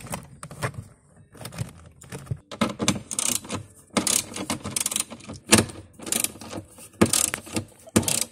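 Ratchet socket wrench with an 8 mm socket on extensions clicking in repeated bursts as its pawl ratchets on each back-swing, with metallic clinks between, while the glove box's last mounting bolts are tightened.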